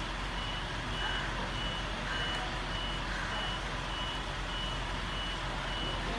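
Electronic vehicle warning beeper of the reversing-alarm kind, sounding a single high, even beep about every 0.6 seconds, over a steady background hiss.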